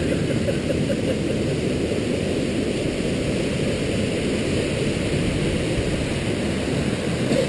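Steady rush of a rocky mountain stream tumbling down a small waterfall.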